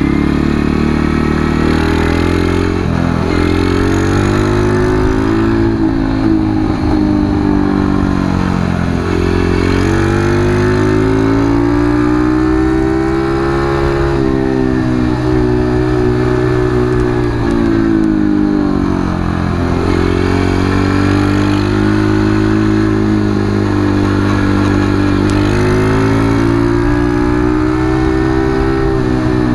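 Single-cylinder engine of a Keeway RKS motorcycle under way, its pitch rising and falling again and again as the rider accelerates and eases off through a lap of bends and straights.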